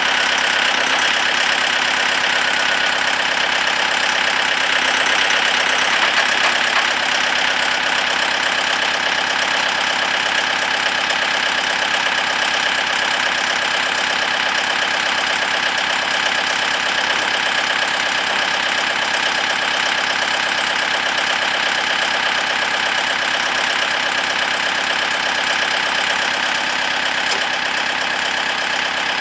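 Diesel engine running steadily at a constant speed.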